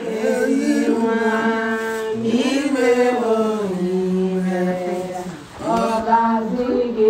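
People singing a song together, in long held notes, with a brief pause about five and a half seconds in.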